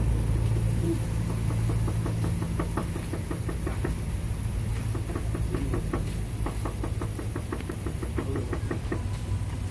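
Rapid, irregular knocking of a taco cook's utensils at a steel street-taco griddle, about four to five knocks a second starting a couple of seconds in, over a steady low hum.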